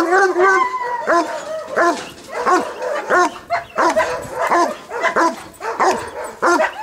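German Shepherd barking repeatedly at a decoy during protection-training agitation, a steady string of sharp pitched barks at about two a second.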